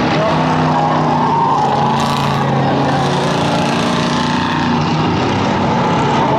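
Cruiser-class race car engines running on the track: a steady, loud engine drone whose pitch shifts slowly as the cars go round.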